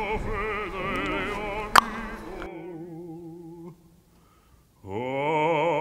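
Operatic singing with a wide vibrato, with a sharp click about two seconds in. The singing fades out just before the four-second mark, and after a short pause a low voice begins a new held phrase near the end.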